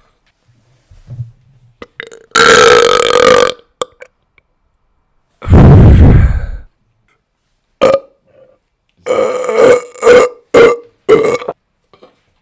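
Loud, deliberate human burps: a long pitched belch about two seconds in, another loud, deeper one midway, then a quick run of short burps near the end.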